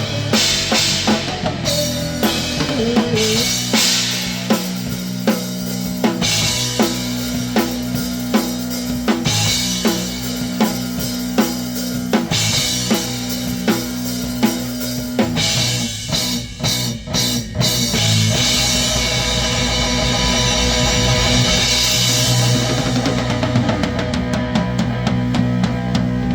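Grunge rock band playing: a drum kit with bass drum and a custom snare hitting a steady beat, over sustained bass and guitar notes. About two-thirds through, the band plays a few short stop-time hits, then carries on with a denser passage full of cymbals.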